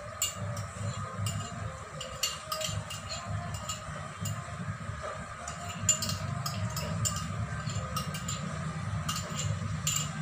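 Chicken and vegetables cooking in a metal pan: scattered, irregular sharp clicks and light clinks over a steady low hum.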